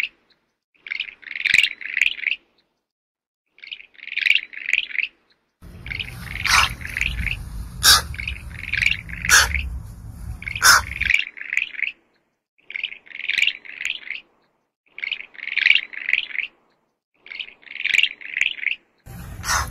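High-pitched animal chirping: short bursts of about four quick chirps each, repeated every one to two seconds with silent gaps between, and a few sharp clicks mixed in.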